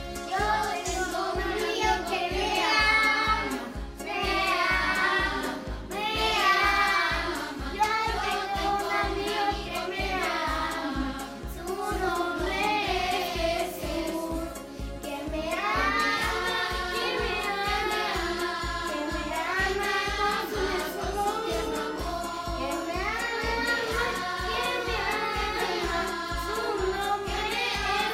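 A children's song: singing over music with a steady beat.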